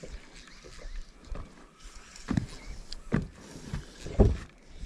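A few dull low thumps aboard a small boat, about a second apart, over a faint steady background; the loudest comes near the end.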